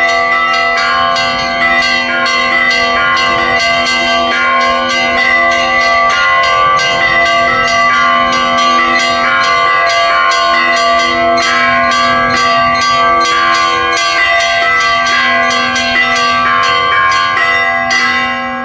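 Russian church bells ringing: small bells struck rapidly, about four or five strikes a second, over the steady hum of larger bells. Near the end the striking stops and the bells ring on and fade.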